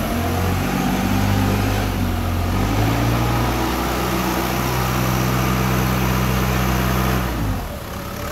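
Cat forklift engine revving up in steps and holding high revs under hydraulic load while the mast lifts a clamped paper roll. The revs fall away suddenly near the end.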